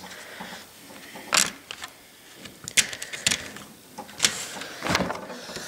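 Hands handling a model locomotive, turning it around on the layout: a handful of sharp clicks and knocks with soft rubbing between them.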